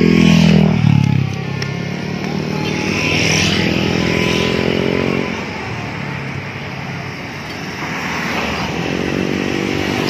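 Road vehicles passing close by, their engines rising and fading in waves. The loudest pass is in the first second, with further passes in the middle and near the end.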